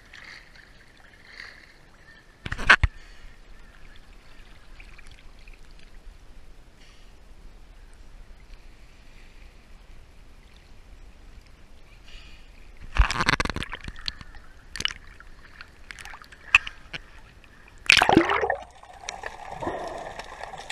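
Sea water splashing and sloshing, with a few loud sudden splashes or knocks: one short one about three seconds in and longer ones about 13 and 18 seconds in.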